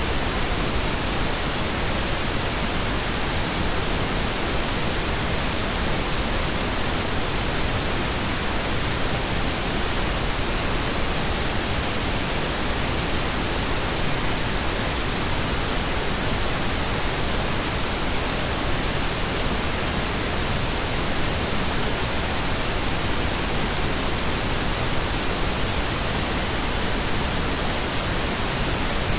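Steady pink noise: a constant, even hiss spread from deep rumble to high treble, with no change.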